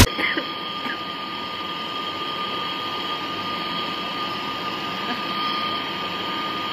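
Brazing torch flame hissing steadily as a copper air-conditioner pipe joint is brazed, with a thin steady whistle over the rush of the flame.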